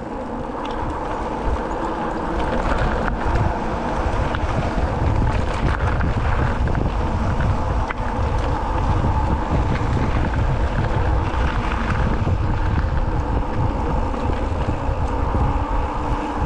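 Wind buffeting the microphone and tyres rumbling over rough trail as a mountain bike descends. It builds over the first couple of seconds, then holds steady.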